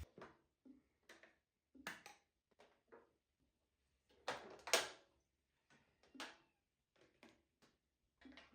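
Scattered light knocks and clatters of small objects being handled, a dozen or so short separate sounds, the loudest a brief cluster about halfway through.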